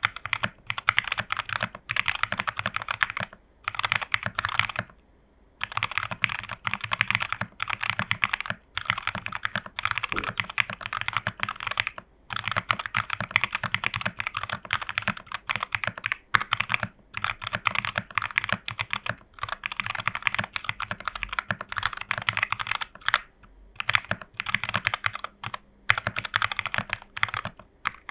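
Typing on a plateless TU40 40% mechanical keyboard with Jwick Nylon switches and XMI keycaps. Quick continuous keystrokes come in runs with a few short pauses.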